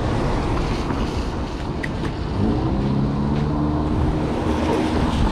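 City street traffic: a steady rush of vehicle noise, and from about two and a half seconds in a vehicle engine rising in pitch, then holding steady.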